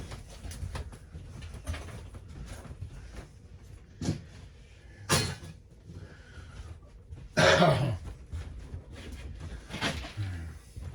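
Scattered clicks and knocks of sheet aluminum being handled, with a sharp clatter about five seconds in and one loud cough about seven and a half seconds in.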